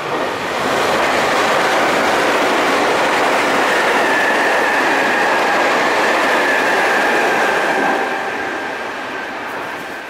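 Nankai Electric Railway commuter train passing through a station at speed without stopping, its wheels clattering over the rails. The sound swells quickly, holds loud for several seconds with a steady high whine joining about four seconds in, then fades as the train moves away.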